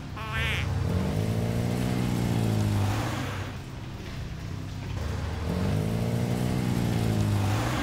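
Cartoon vehicle engine sound effect, revving up and easing off twice.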